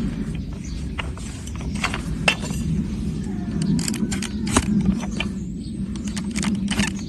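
Irregular sharp clicks and snaps of hoof-trimming tools cutting into a donkey's hard, overgrown hoof horn, over a steady low hum.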